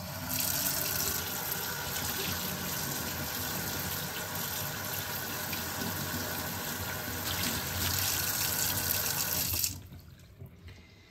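Kitchen tap running into a stainless steel sink, the stream splashing over a scouring sponge held under it to rinse it. The tap is shut off near the end.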